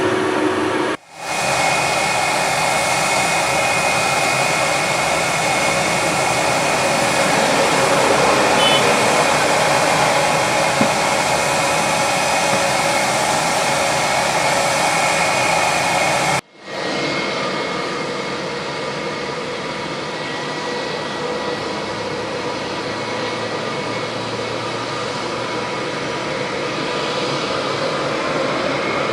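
Jet airliner engines running steadily: a loud rushing noise with faint high whining tones, broken by two abrupt cuts about a second in and about sixteen seconds in.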